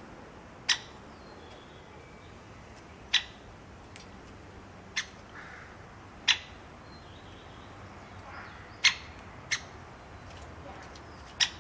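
A bird giving short, sharp chip calls, seven in all at irregular intervals of one to three seconds, over a steady hiss. Faint thin whistles from other birds come in between.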